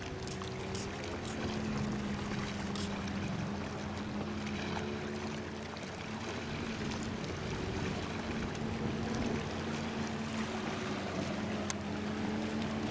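Steady low drone of a boat engine out on the water, over a hiss of lapping water, with one sharp click near the end.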